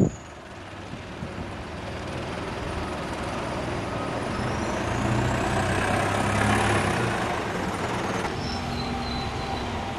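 Single-deck bus engine running as the bus pulls away and drives past, growing louder to a peak about six to seven seconds in and then easing off, with a faint high whine that rises and falls as it passes.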